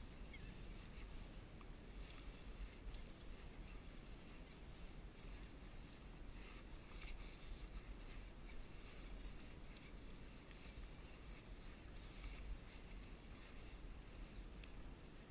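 Faint, steady low rumble of wind on the microphone, with light water lapping against a kayak hull and a few faint ticks.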